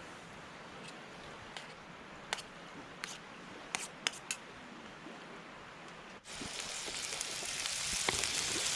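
A few light, separate clicks and taps, then chopped chorizo, onion, garlic and tomato start frying in oil in a pan on a Trangia camp stove: a dense sizzle that begins abruptly about six seconds in and grows louder.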